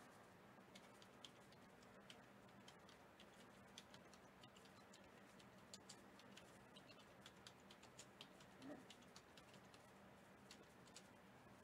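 Faint computer keyboard typing: scattered, irregular key clicks over a low steady electrical hum.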